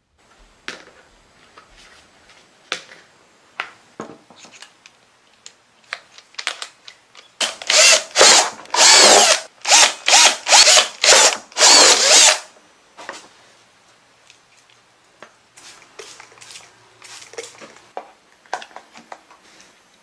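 Cordless drill boring holes through the bottom of a black plastic pot, run in a quick series of about eight short bursts from about seven and a half seconds in, lasting around five seconds. Lighter clicks and knocks of handling the pot come before and after.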